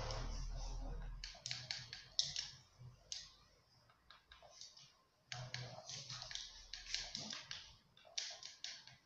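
Quick clicking of game controller buttons pressed to type a message letter by letter on a PlayStation 4's on-screen keyboard. The clicks come in two runs with a pause between, after a brief rustling noise in the first second.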